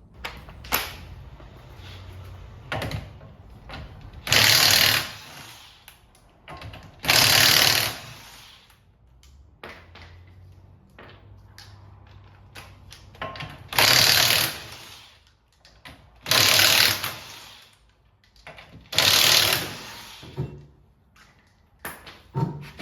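Power tool run in five short bursts of about a second each, spaced a few seconds apart.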